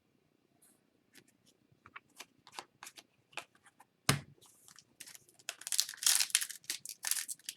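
Hockey trading cards being handled with small clicks and rustles, a sharp knock about four seconds in, then a card pack wrapper being torn open and crinkling.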